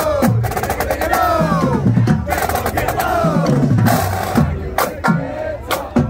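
Marching band members' voices chanting together in rhythm over a drumline's marching cadence of snare drums, bass drums and stick clicks.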